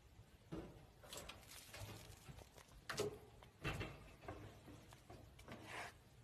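A kitten's claws scratching and tapping on a wire cage and a plastic fitting as it clings and paws: a few faint, scattered knocks and scrapes, the sharpest about three seconds in.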